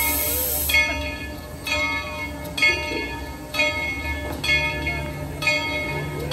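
Steam locomotive's bell ringing steadily, about one stroke a second. At the start a high steam hiss vents from the locomotive and cuts off within the first second.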